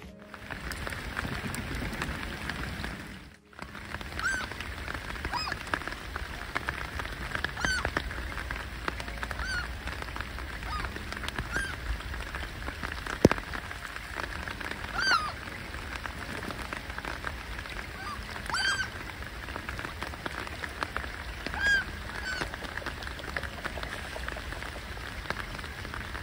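Steady rain falling on lake water, with mallard ducks quacking, short single calls every few seconds. A single sharp knock about halfway through.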